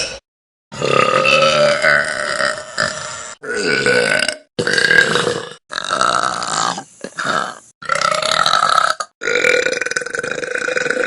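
A series of about six loud burps from girls, each drawn out for a second or two with a wavering pitch, one after another with short breaks between them.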